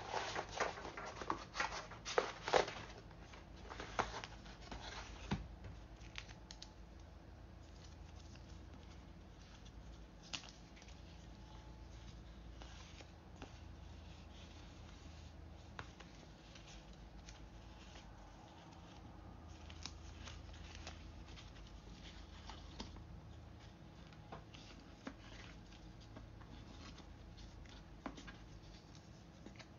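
Hands handling 5.25-inch floppy disks in paper sleeves, a sheet of labels and a cardboard box: rustling and light clicks, busiest in the first six seconds or so, then sparse and quieter.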